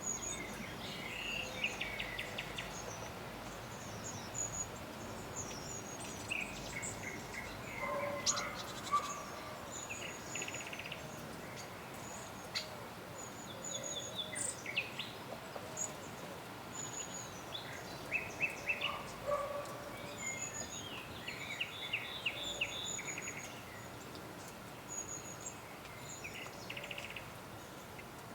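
Forest birdsong: several songbirds give short high chirps and quick rapid trills throughout, with a few lower calls mixed in, over a steady faint background hiss.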